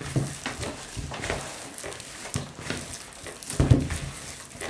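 Soft, butter-enriched yeast dough being kneaded by hand in a bowl: squelching and soft thumps about once a second, heaviest near the end.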